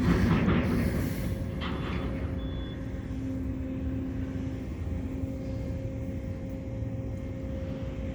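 Steady low engine drone with a constant hum, with a short burst of handling noise at the start.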